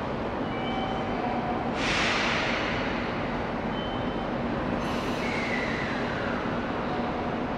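Seibu Ikebukuro Line electric train at a station platform: steady rumble, a sudden loud hiss of air about two seconds in that dies away over a second or so, then a slowly falling whine.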